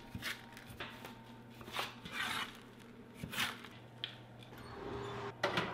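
Metal spatula scraping across aluminium sheet pans and stirring loose toasted granola: short, irregular scrapes and rustles of oats and hazelnuts, over a faint steady hum.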